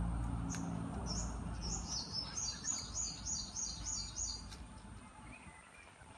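A small songbird singing a quick run of repeated high chirps, about four a second, which stop about halfway through. A low steady hum fades out in the first second or so.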